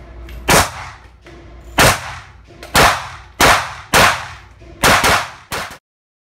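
Caracal Enhanced F 9mm pistol firing about seven shots at an uneven pace. Each shot is followed by a short echo off the walls of an indoor range. The sound cuts off suddenly after the last shot.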